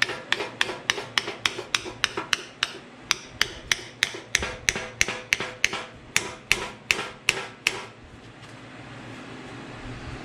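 Hand hammer tapping metal on metal at the pinion flange of a Ford 8.8 rear differential, tapping a part down: quick, even strikes, about three a second, that stop about eight seconds in.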